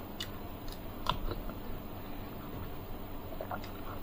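Close-miked eating sounds as rasmalai is spooned up and eaten: a few small wet clicks and smacks of mouth and metal spoon, the sharpest about a second in.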